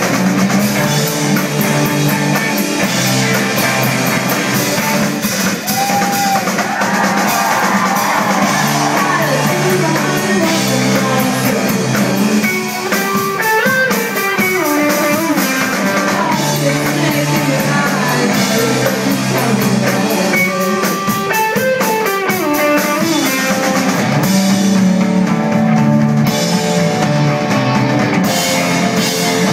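Live rock band playing loudly, with electric guitars, a drum kit and a sung vocal line.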